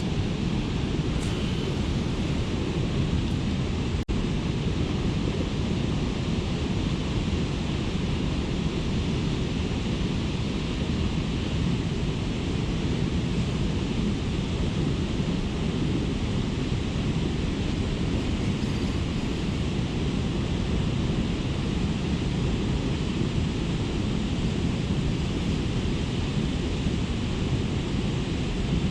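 Steady low rushing noise of wind buffeting the microphone outdoors by a fast river, with a momentary dropout about four seconds in.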